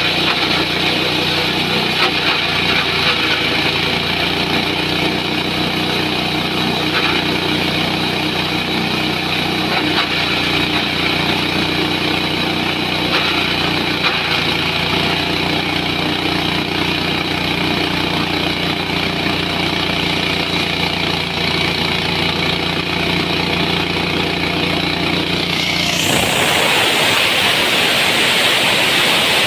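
SM65 multifunction chopper machine running steadily with a mechanical hum. About 26 seconds in, the low hum drops away and a louder, hissier whir takes over.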